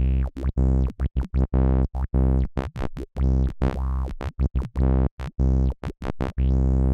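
FL Studio's 3x Osc synthesizer playing short, choppy notes with a deep bass through the Vintage Phaser plugin. The phaser's sweep rises and falls across the notes, giving them a swirling, moving tone.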